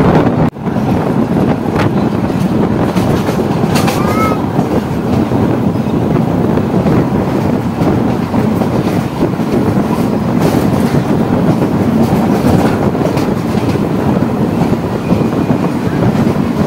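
ICF passenger coach running at speed, heard from its open doorway: a steady rumble of wheels on rail mixed with rushing air, with a few rail-joint clicks. The sound drops out briefly about half a second in.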